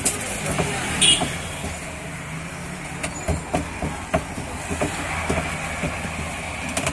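Steady street-traffic rumble, with irregular clacks and knocks as a rolling pin works bhatura dough on a steel counter, and one brief loud sharp noise about a second in.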